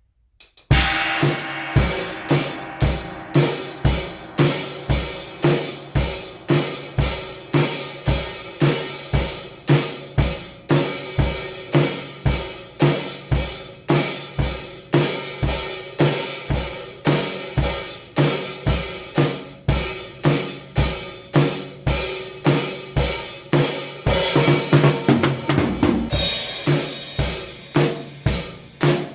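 A drum kit being played, with kick, snare, hi-hats and cymbals. It comes in suddenly with a cymbal crash and keeps a steady beat of about two strokes a second, with a busier fill near the end.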